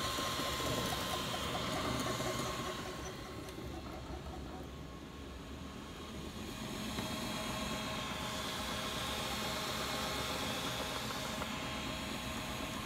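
Ultimaker 3D printer running a print: its stepper motors whine, shifting in pitch as the head moves, over the steady hiss and hum of its cooling fans.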